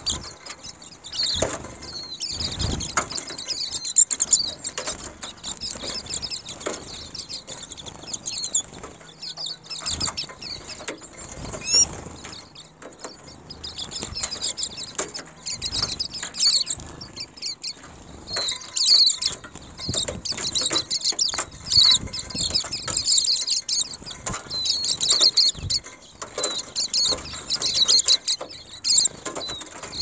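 A flock of white-eyes chattering at a feeder, a dense run of rapid high twittering chirps with fluttering wings as birds land, jostle and take off. The chatter is busiest in the second half.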